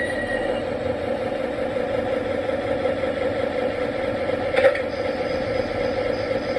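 O gauge model train's Proto-Sound 2.0 diesel engine sound, running steadily, with a single sharp click about four and a half seconds in.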